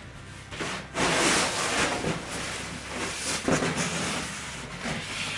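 Cardboard shipping box being pulled up and off a wooden two-by-four crate: a long scraping, rustling rub of cardboard against wood that builds about a second in, with a few louder scrapes later on.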